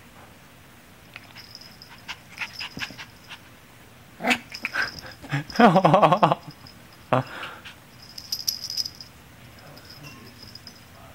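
Miniature schnauzer puppy vocalising in play: a couple of sharp yaps and a longer, wavering growly outburst in the middle, the loudest part. Clusters of light clicking and jingling come before and after it.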